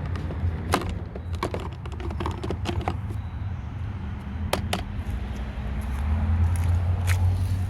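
Electric pressure washer running with a steady low hum and the noise of the spray, with a scatter of sharp clicks and knocks, most of them in the first few seconds.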